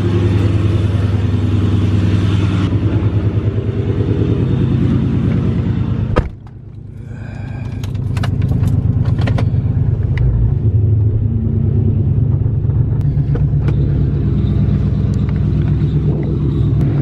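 Chrysler 300's engine idling with a steady, pulsing exhaust note. About six seconds in a car door shuts with a click and the engine is heard more muffled from inside the cabin, then it grows louder again as the car gets moving.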